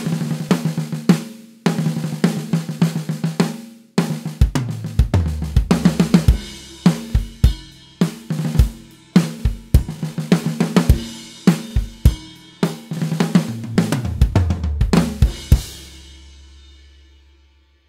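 Sampled acoustic drum kit sounds triggered from an electronic drum kit through the DrumPi Raspberry Pi drum module, testing a newly imported snare sample. Quick snare fills with short breaks near the start, then a beat with bass drum, snare and cymbals. The last cymbal rings on and fades out near the end.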